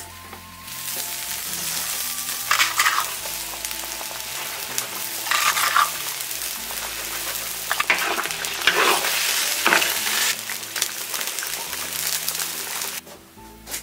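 Lamb pieces sizzling and bubbling in sauce in a large iron wok. The sizzle starts about a second in, flares louder several times (as when stirred), and cuts off near the end.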